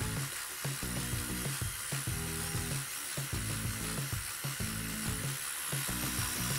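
Background music with a steady beat and repeating bass line, over a steady high hiss.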